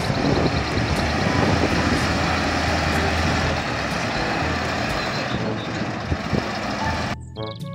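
Diesel engine of a Tatra eight-wheeled dump truck running with a steady low drone and heavy rumble as the truck drives across a steep slope. It cuts off suddenly near the end.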